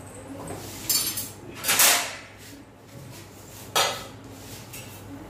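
Steel dishes and cookware being handled on a kitchen counter and stove: three clanks and scrapes, the loudest and longest about two seconds in and a sharp, ringing clink near the four-second mark.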